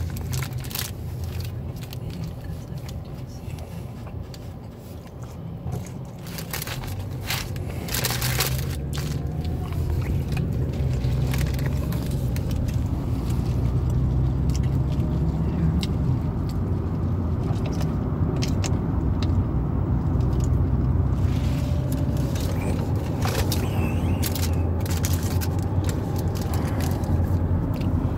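Steady low road-and-engine rumble inside a car cabin, getting louder about eight seconds in, with the crinkle of a paper sandwich wrapper and chewing close by.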